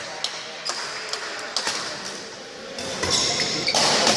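Badminton rally: sharp racket strikes on the shuttlecock and quick footfalls on a wooden court floor, with shoes squeaking on the floor near the end as the play gets louder.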